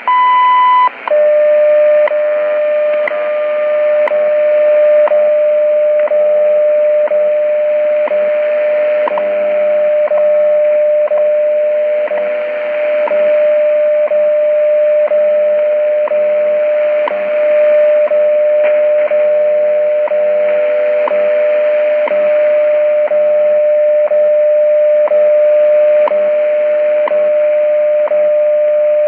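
WWV shortwave time signal heard through a portable radio's speaker: a long beep at about 1000 Hz marking the start of the minute, then a steady tone near 600 Hz with a faint tick once a second, over shortwave static that fades a little now and then.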